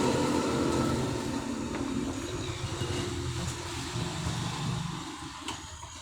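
A motor vehicle engine running, loud at first and fading steadily away over several seconds.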